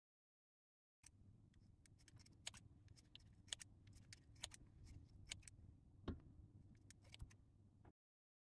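Kitchen scissors snipping through raw cod roe sacs: a run of quiet, sharp snips, about two a second, starting about a second in, with one heavier knock about six seconds in.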